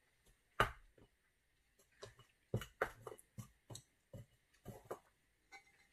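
A sharp knock about half a second in, then a run of light, irregular taps and knocks: handling noise as a small painted canvas is moved and set against the tabletop beside plastic cups.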